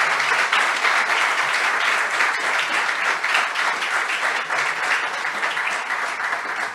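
Audience applauding: many hands clapping in a dense patter, easing off slightly toward the end.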